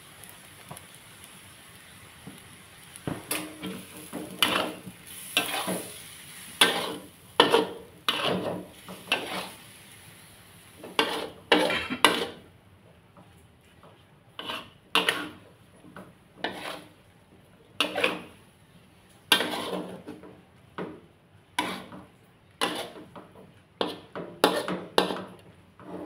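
Metal spatula scraping and turning food in an aluminium wok while stir-frying glass noodles with egg: repeated scraping strokes, roughly one a second, starting about three seconds in.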